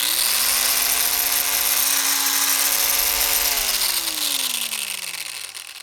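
Handheld Roto saw motor spinning up to a steady high-speed whine with a strong hiss, then switched off about three and a half seconds in and winding down, its pitch falling as it coasts to a stop.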